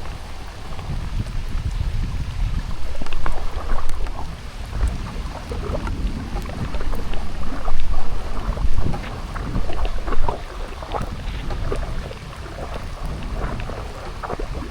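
Rain falling, with gusts of wind buffeting the microphone: a low rumble that swells and fades, loudest around the middle, over a patter of drops.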